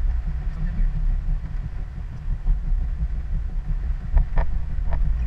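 Steady low rumble of road and wind noise from a Chevrolet Blazer driving on a wet road, with a few sharp taps about four seconds in.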